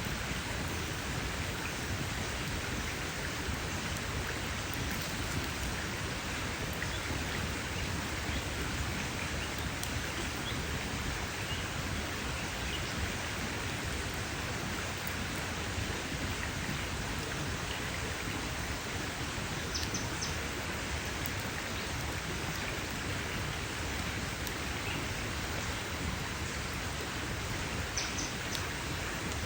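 Campfire burning: a steady hiss with many small crackles and pops scattered through it.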